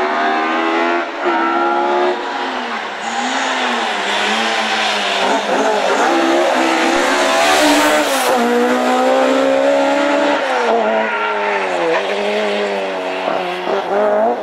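Ford Escort Mk2 rally car's engine revving hard, the pitch climbing and dropping again and again as the driver lifts and shifts through a tight corner and accelerates away. A rush of noise swells as it passes closest, about halfway through.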